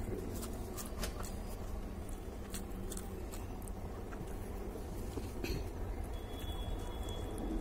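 Eating rice and fish curry by hand: fingers squishing and mixing the rice and curry on a steel plate, with scattered light clicks and taps against the plate, and mouth sounds of chewing. A steady low hum runs underneath.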